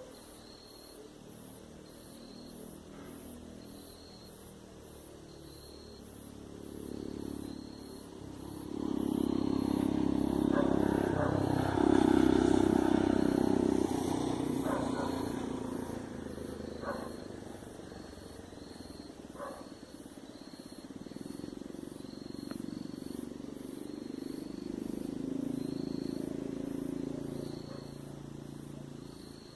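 Campfire crackling with a few sharp pops while motor vehicles pass on the road. One vehicle's engine swells to its loudest about halfway through and fades away; a quieter one passes later.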